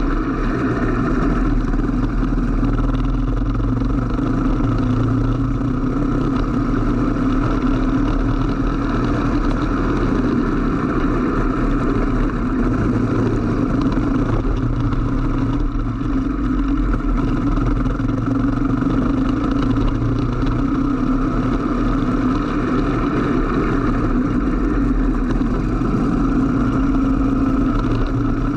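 Racing kart engine running under load, heard from the kart's onboard camera, its note rising and falling slightly as the kart slows for corners and speeds up again.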